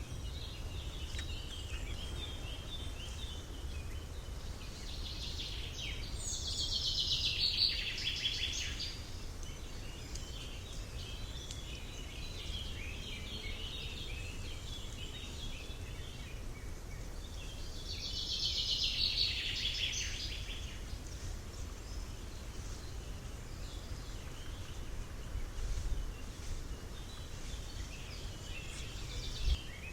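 Countryside ambience: several birds chirping and singing, with two louder rapid trilled song phrases, the first about a quarter of the way in and the second about two-thirds of the way in, over a steady low rumble.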